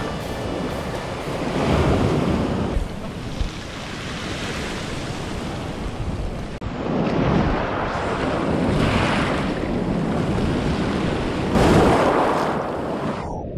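Sea surf washing up a pebble shore and drawing back, swelling and ebbing every few seconds, with wind buffeting the microphone.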